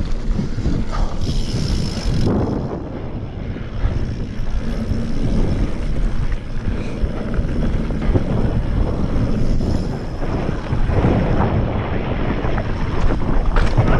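Mountain bike rolling fast down a rough, rocky dirt trail: a steady rumble of tyres and wind on a GoPro's microphone, broken by many small knocks and rattles from the bike over rocks and roots.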